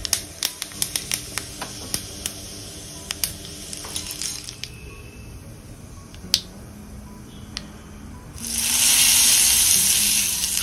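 Mustard seeds popping and crackling in hot oil in a small tempering pan, with sharp scattered cracks over the first four seconds or so. About eight seconds in, a loud sizzle starts as the hot mustard-cumin-asafoetida tempering is poured onto green chutney.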